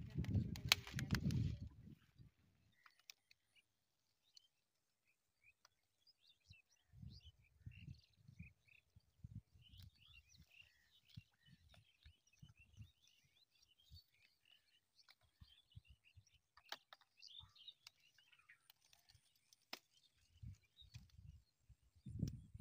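Faint chirping of small birds, broken by low rumbling bumps on the microphone that are loudest in the first couple of seconds and come back in a run about a third of the way through.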